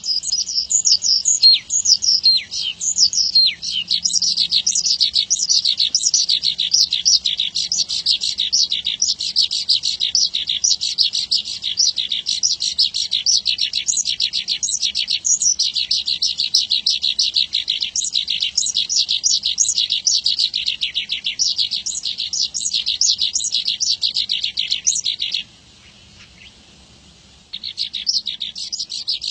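Horsfield's bush lark (branjangan) singing a long, fast run of high chirping notes. It breaks off about 25 seconds in and resumes after a pause of about two seconds.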